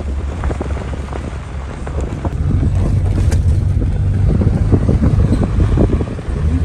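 A car driving on a rough, bumpy dirt road: a loud low rumble with frequent jolts and rattles, with wind buffeting the microphone. It gets louder about halfway through.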